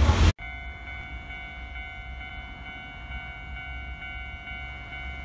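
A Japanese railway level crossing's warning bell ringing steadily as a train comes, over a low rumble. A louder sound cuts off suddenly just after the start.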